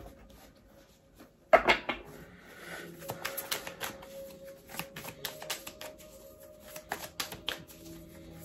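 Tarot cards being shuffled by hand: one loud rush about one and a half seconds in, then a run of quick card flicks and clicks.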